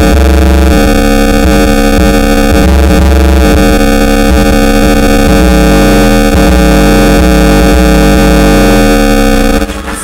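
Bass-heavy music played at high volume through a computer speaker system with a Pioneer subwoofer, so loud that the recording is clipped and distorted. The level drops back shortly before the end.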